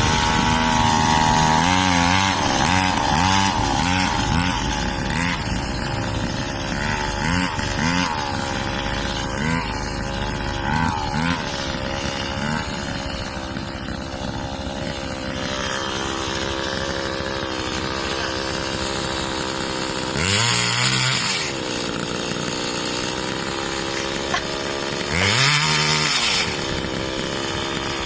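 Small grass-cutter engine powering a homemade vehicle, running with its pitch wavering up and down over the first dozen seconds, then holding steady. It revs up sharply and drops back twice near the end.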